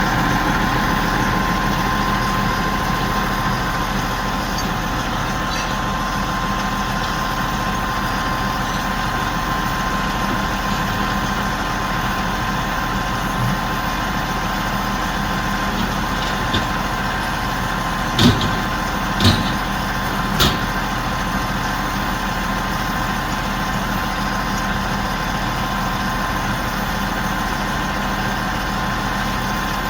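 Heavy truck-mounted crane's diesel engine running steadily with a constant hum. Three short, sharp knocks come about eighteen, nineteen and twenty seconds in.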